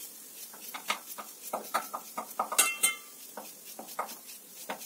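Knife cutting a potato by hand, the pieces dropping into a stainless-steel bowl: a run of small clicks and clinks, the loudest about two and a half seconds in.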